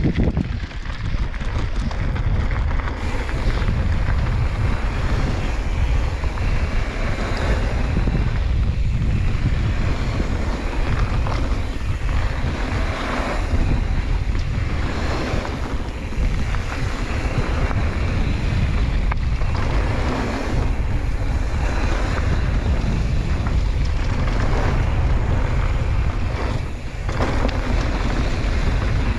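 Steady loud rush of wind buffeting the microphone of a camera carried on a mountain bike moving at speed down a flow trail.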